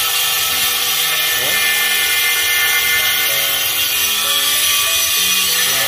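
Handheld angle grinder with a cutting disc running steadily as it cuts through a glazed ceramic tile: a constant, high-pitched grinding noise.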